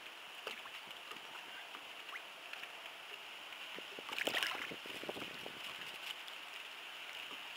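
Water lapping and sloshing softly against the side of a boat while a hooked tautog is drawn up to the surface, with a short louder splash about four seconds in as the fish reaches the top.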